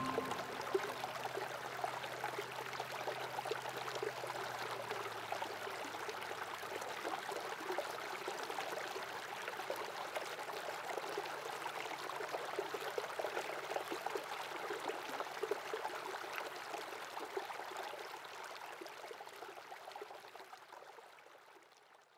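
Shallow stream running over a pebble bed: a steady rush and trickle of water that fades out over the last few seconds.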